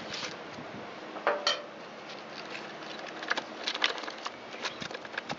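Light metallic clicks and taps of a hand tool and small screws on a string trimmer's engine as the carburetor screws are taken out, scattered irregularly with a small cluster about a second and a half in and more toward the end.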